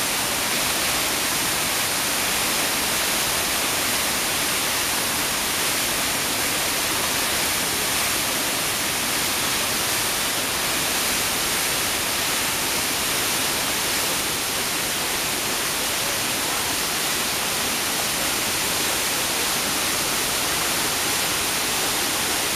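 A cascade of Iguazú Falls rushing steadily, a dense, even hiss of falling whitewater with no letup.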